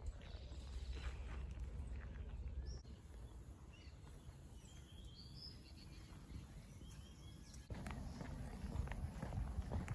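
Outdoor ambience with a steady low rumble and a few faint, short bird chirps in the middle. Footsteps on a paved path begin near the end.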